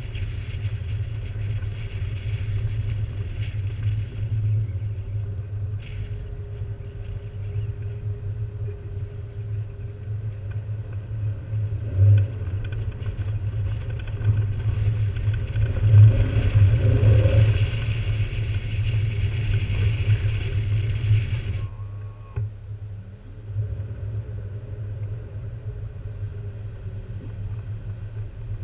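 A Jeep driving along a snowy trail, heard from a hood-mounted camera: a steady low rumble of engine and wind buffeting the microphone, with hiss above it. The hiss swells with a couple of louder jolts around the middle, then drops away abruptly about three quarters of the way through, leaving the low rumble.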